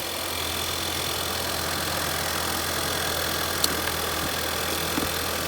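Car engine idling steadily, running after being jump-started from a dead battery, with one sharp click about three and a half seconds in.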